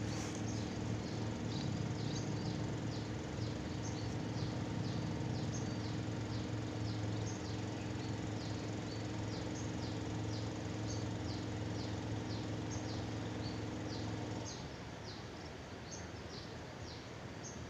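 Rapid short high chirps of small animals, two or three a second, over a steady low motor hum that cuts off about three quarters of the way through.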